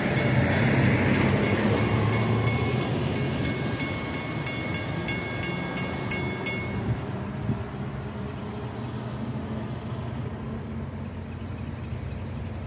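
Mechanical railroad-crossing bell (a WCH mechanical bell) ringing with rapid, even strikes, about three a second, while the crossing gates lower. It cuts off suddenly about seven seconds in, as the bell is set to ring only until the gates are down. A low steady rumble runs underneath.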